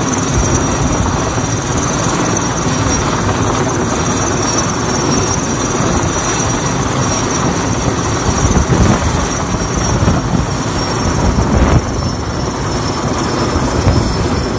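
Sikorsky S-64 Skycrane heavy-lift helicopter hovering low overhead: the steady noise of its rotor and turbines, with a high, steady turbine whine above it. The noise swells louder a few times in the second half.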